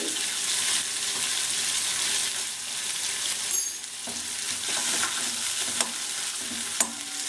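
Hot oil tempering of mustard seeds, sesame seeds, curry leaves and green chillies sizzling in a small pan with the heat turned off, a steady hiss, while a spoon stirs it. There are two sharp clicks of the spoon near the end.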